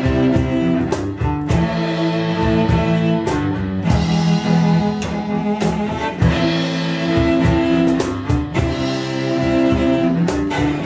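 Three cellos bowing a metal arrangement in held, layered notes, with percussion hits marking the beat.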